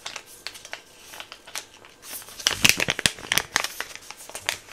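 Crinkling of a sheet face-mask sachet handled close to the microphone: scattered small crackles that get louder and denser about two seconds in for a second or so, then ease off.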